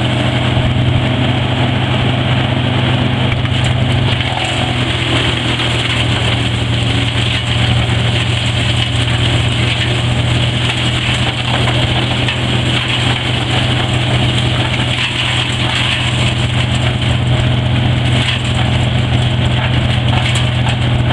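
2004 Altec Hyroller 1200 wood chipper running steadily, a constant low engine drone with an even rushing hiss above it.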